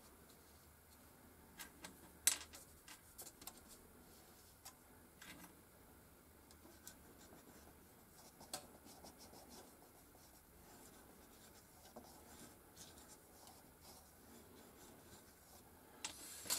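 Faint rubbing and light scratching of the rounded tip of an LED worked over thin aluminium pie-tray foil pressed on a 3D-printed plastic die, embossing the diaphragm's rings. Scattered small ticks and foil crinkles, with one sharper click about two seconds in.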